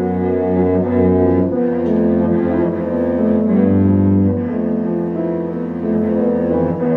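Cello and piano playing a sonata together: bowed cello notes held over a piano accompaniment.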